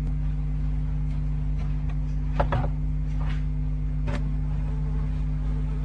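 Steady low electrical hum from the nestbox camera's audio feed. Several brief scuffs or knocks sound inside the box at about two and a half, three and a half and four seconds in.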